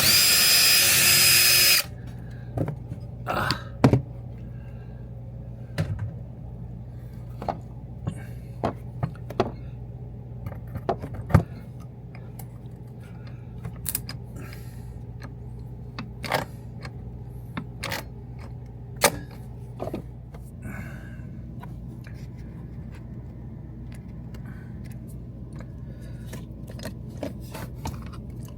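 Electric drill running in one short burst of about two seconds, drilling out an old rivet from the Airstream's aluminium skin, followed by scattered light clicks and taps of tools and rivets being handled.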